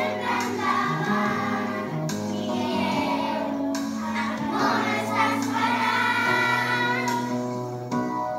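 A group of young children singing a song together as a choir, over steady low accompaniment notes.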